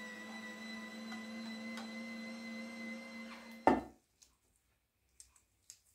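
A household appliance running with a steady electric hum, stopped a little over three and a half seconds in by a single loud clunk. After that, near silence with a few faint ticks.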